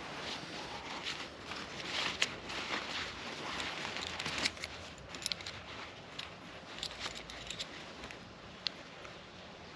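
Nylon fabric of an insulated hammock quilt rustling as it is handled, with scattered light clicks from a plastic cord lock and a carabiner on its drawcord, most of them about halfway through.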